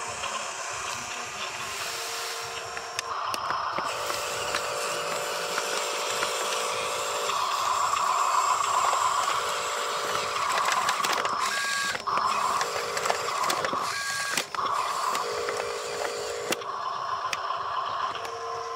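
Small electric motor of a Huina RC dump truck's tipper lift whining as the bed tips up, running in stretches that stop and start.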